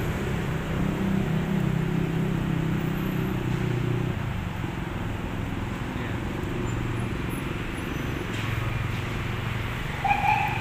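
City road traffic heard from a footbridge above: a steady rumble of engines and tyres, with a low engine drone loudest in the first few seconds, then easing. A short higher-pitched sound about ten seconds in.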